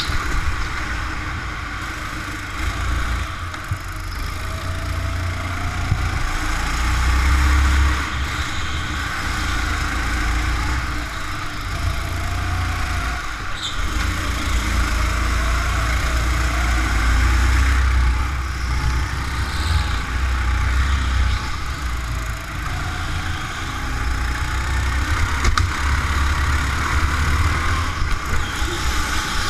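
Go-kart engines running on an indoor track, the engine pitch rising and falling as the kart speeds up and slows for the corners, over a heavy low rumble.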